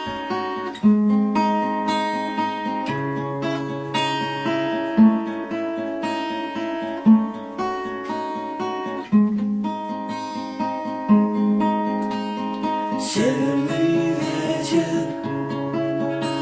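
Acoustic guitar playing a slow instrumental introduction, with a low bass note struck about every two seconds under ringing chords.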